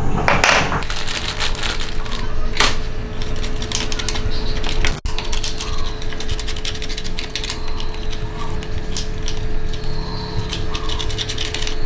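Metal hand tools clicking and clinking on motorcycle drive parts in a quick, irregular series of small knocks, over a steady hum.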